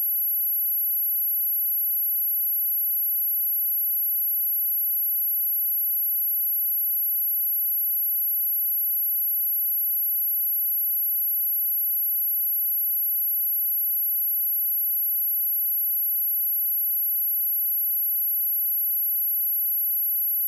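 Pure sine test tone at 11684 Hz: a single steady, very high-pitched whistle at an even level, used to test speakers and shake water and dust out of them.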